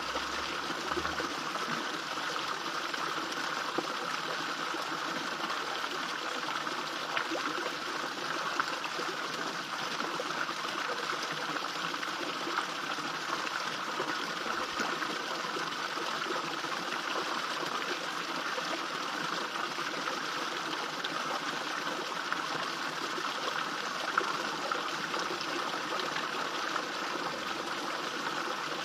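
Small garden fish pond waterfall: water falling and splashing steadily into the pond, a continuous even trickling rush with now and then a slightly louder splash.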